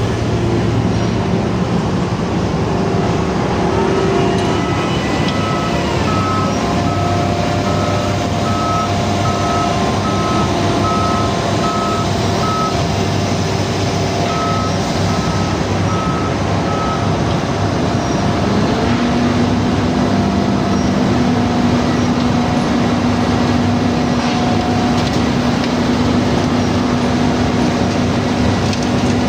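Heavy construction machinery running steadily, with a reversing alarm beeping about twice a second through much of the first half. A new steady engine note comes in about two-thirds of the way through.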